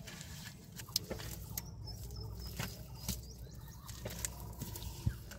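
Hands digging into and breaking apart clods of wet mud, giving scattered short sharp clicks and crunches, about one a second.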